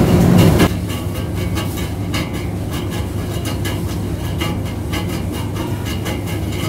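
Shopping trolley being pushed, its wheels rattling and clicking over the floor, over a steady low hum of store machinery. A louder rumble stops under a second in.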